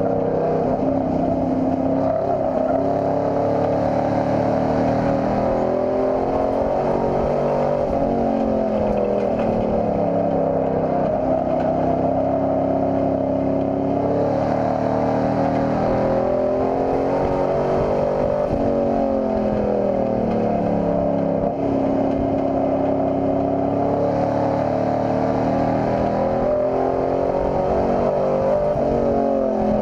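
Race pickup truck's engine at racing speed, heard from inside the cab: its note drops and then climbs again over and over as the driver lifts off and gets back on the throttle around the oval.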